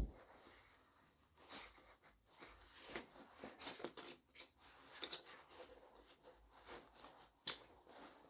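Faint, scattered small clicks and rustles in a small room, with a sharper click at the very start and another about seven and a half seconds in.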